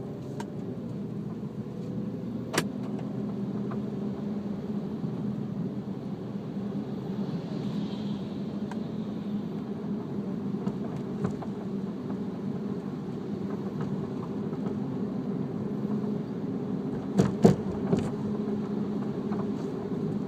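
Infiniti G37X sedan with BC Racing coilovers driving with a steady road and engine hum, broken by sharp clunks from the suspension: one about two and a half seconds in and a louder cluster of knocks near the end. The clanking has been there since the coilovers were installed.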